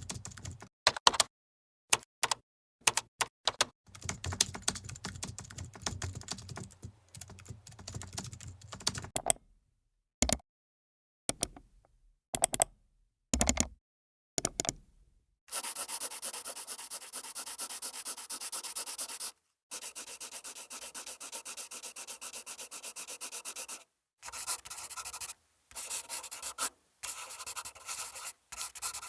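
A series of separate sound-effect clips with silent gaps between them: sharp clicks and taps, then about eight seconds of rapid, evenly repeated scratchy ticking like keyboard typing.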